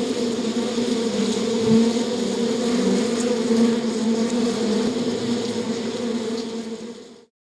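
Bee buzzing steadily, a droning hum that dips slightly in level and then cuts off abruptly near the end.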